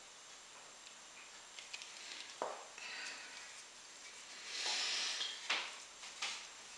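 Aerosol lubricant sprayed through a straw onto a motorcycle engine's oil pump in two short hissing bursts about two seconds apart, with a few small clicks of handling.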